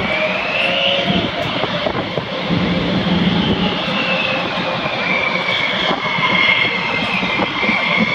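Jet aircraft engine running, a steady rushing noise with a high whine that slowly rises and falls.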